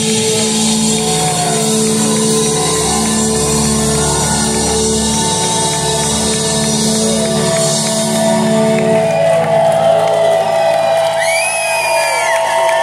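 A live rock band holds a sustained closing chord that dies away about two-thirds of the way through. The audience then cheers and whistles as the song ends.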